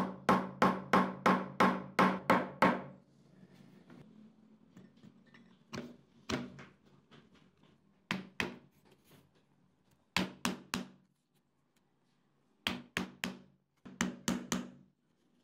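A mallet tapping a ball bearing into the aluminium end cap of an exhaust fan motor: quick ringing strikes, about four a second, for the first few seconds. After a pause come short groups of two to four knocks, a wooden block being tapped down onto the motor's stator in its housing.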